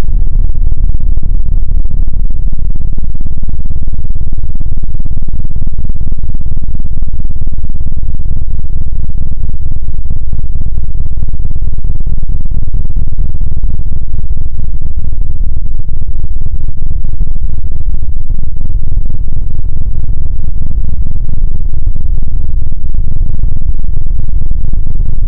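A loud sound effect slowed far down into a steady, distorted low noise at near full volume, its energy mostly in the deep bass and little in the highs.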